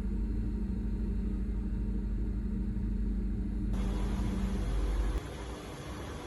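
DMG DMU 50 machining centre running: a steady low rumble with a hum. About four seconds in a hiss comes in, and a second later the rumble cuts off, leaving a steady fan-like hiss.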